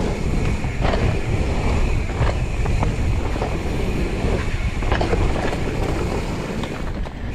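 Wind buffeting an action-camera microphone and mountain-bike tyres rumbling over a dirt trail at speed, with a few short clicks and rattles from the bike over bumps.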